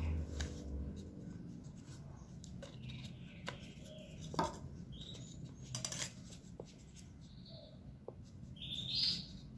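Faint handling sounds of fingers working a red EVA foam petal: soft rubbing with a few scattered light clicks.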